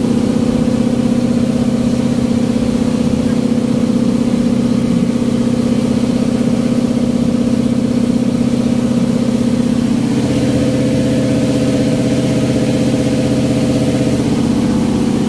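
Boat engine running steadily, its pitch rising slightly about ten seconds in.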